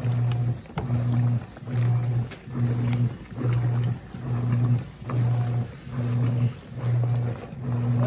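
Wanke Sally 5 kg semi-automatic washing machine agitating on its heavy cycle: the motor hums in even strokes a little more than once a second, with short pauses between as the agitator changes direction. Soapy water sloshes around the load.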